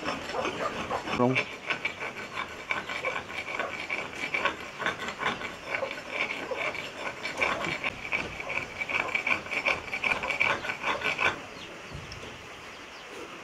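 A river-stone slab being shaped for a stone lithophone with a small hand tool: a quick, busy run of scraping and chipping strokes on the stone, each stroke drawing a faint high ring from the slab, until the work stops near the end.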